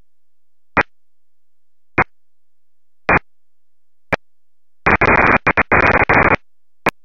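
FM receiver output from a software-defined radio tuned to 145.925 MHz on the 2-metre band: short bursts of static hiss about once a second with silence between, as the squelch opens and shuts. About five seconds in comes a longer, choppy stretch of hiss.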